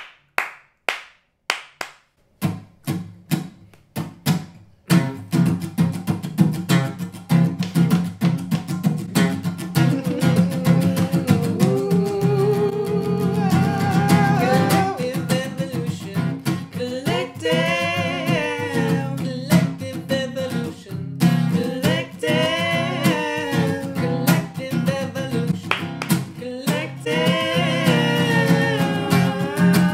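Hand claps in a steady beat, about two a second, then a strummed acoustic guitar joins a few seconds in. A man and a woman sing together over the guitar.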